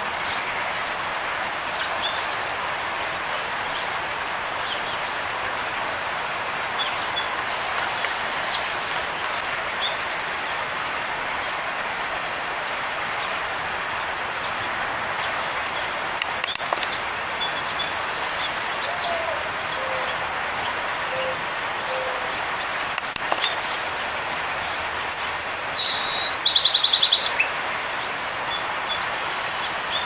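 Small songbirds chirping and trilling in short high bursts over a steady background rush of noise, with the loudest run of rapid notes near the end.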